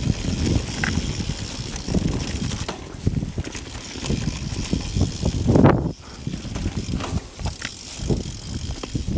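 Silverback Slider LT mountain bike descending a muddy, leaf-covered trail: tyres churning over dirt and the bike rattling and knocking over bumps, with the biggest jolt about five and a half seconds in.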